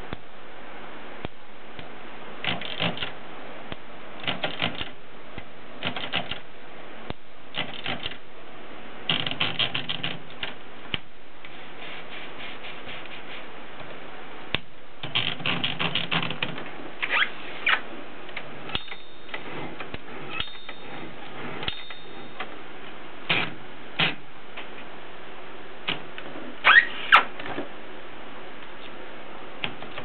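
ABC portable typewriter's platen being turned by hand in short bursts, its line-spacing detent giving runs of quick ratcheting clicks as the paper is wound in. Sharper single clacks of the carriage mechanism come in the second half, the loudest pair near the end, over a steady hiss.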